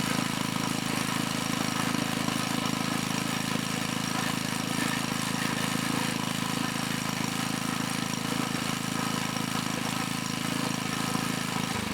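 Engine of an 8-ton log splitter running steadily, driving the hydraulic pump through a newly replaced belt; it cuts off just before the end.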